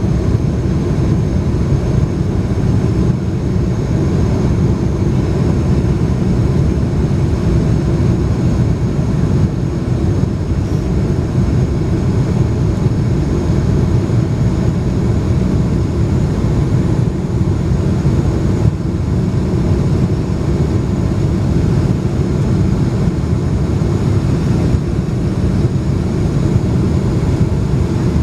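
Boeing 747-400 cabin noise during the climb: the Rolls-Royce RB211 engines and airflow make a steady, loud, low rumble, with a faint high whine above it.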